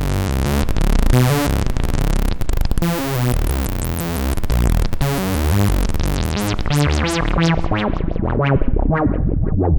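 Moog Source monophonic analog synthesizer playing a fast run of repeated low notes with a bright, buzzy tone; in the second half its filter sweeps closed so the sound grows steadily darker and duller.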